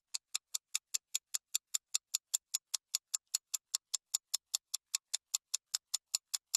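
Clock-ticking sound effect: evenly spaced, identical sharp ticks at about five a second, used to mark a fast-forwarded stretch.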